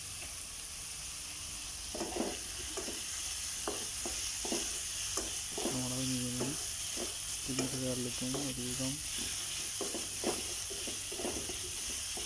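Chopped onion, ginger, garlic and green chilli sizzling in hot oil in a metal pan, with a spatula scraping and stirring them in frequent strokes as they sauté. A brief low hum comes twice near the middle.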